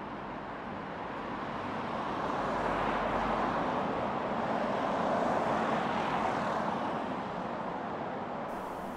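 Passing road traffic: a vehicle's noise swells over a few seconds, peaks in the middle and then fades away.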